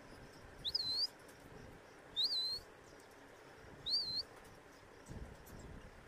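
Budgie chirping: three short, high peeps about a second and a half apart, each a quick up-and-down squeak in pitch.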